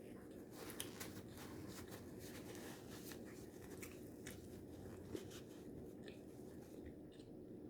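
Faint mouth sounds of someone eating taco salad with tortilla chips: soft chewing and crunching, broken by many short sharp clicks, one louder about five seconds in.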